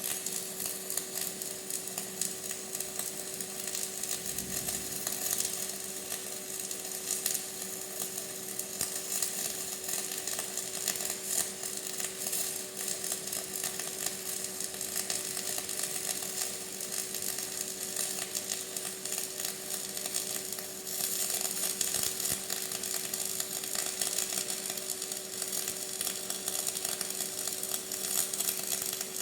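Flux-cored arc welding with E71T-1 tubular flux-cored wire: the arc crackles and sizzles steadily while the hot pass is laid, over a steady hum.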